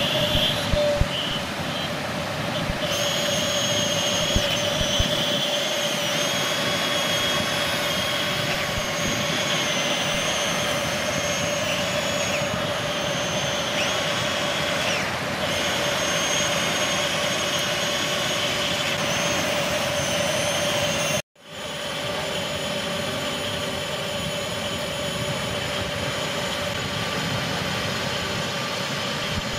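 Radio-controlled excavator's electric motors running with a steady whine as the machine works. The sound cuts out for an instant about two-thirds of the way through, then carries on.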